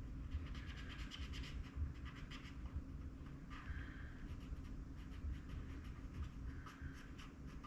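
Faint scratching and rustling of paper with light clicks: paper bills and a savings-challenge sheet being handled.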